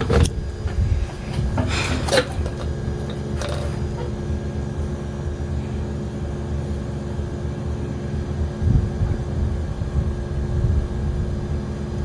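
A steady low mechanical hum of background noise, with a few sharp clicks and knocks of handling in the first four seconds.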